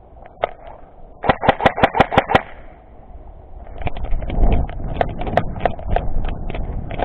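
Airsoft gun firing a quick string of about eight sharp shots, roughly a second long, followed by a few seconds of rough scuffling noise with scattered clicks.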